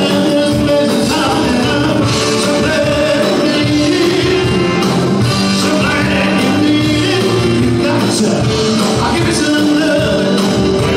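Live band playing a song with a steady drum beat.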